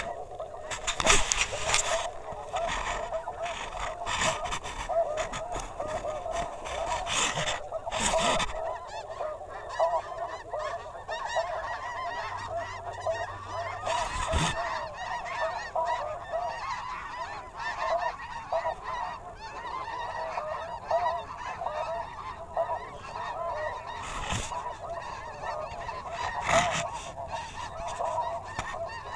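Snow geese calling, a dense steady chorus of many overlapping honks. A few brief scuffing noises cut through it now and then.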